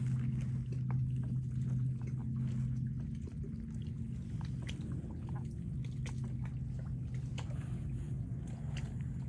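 Water lapping and dripping against a Hobie kayak's hull as it glides through shallow water, heard as scattered small splashy clicks. Under it runs a steady low hum, louder in the first few seconds.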